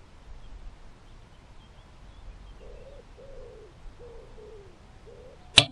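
A wood pigeon cooing, a short run of low, soft notes, then a single sharp crack of an air rifle shot near the end.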